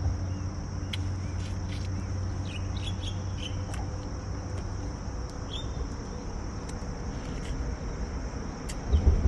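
Steady high-pitched insect trill over a low rumble, with a few short bird chirps in the middle and occasional light clicks. A low bump near the end is the loudest moment.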